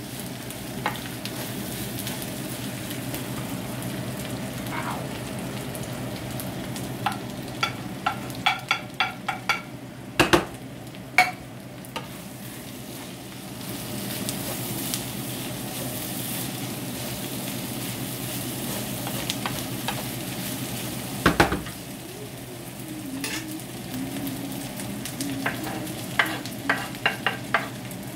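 Diced pork for sisig frying with a steady sizzle in a nonstick frying pan while a wooden spatula stirs it, with runs of quick clicks and scrapes from the spatula against the pan. There is a single louder knock about three quarters of the way through.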